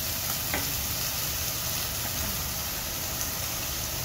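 Minced mutton and chopped onions frying in hot oil in a pan: a steady sizzling hiss with a few faint pops.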